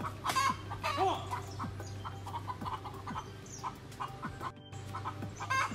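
Backyard chickens clucking: many short calls, over a steady low hum. The sound drops out briefly for a moment after about four and a half seconds.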